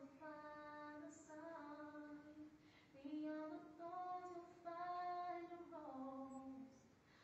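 Young women's voices singing a slow tune unaccompanied, with long held notes that step up and down in pitch.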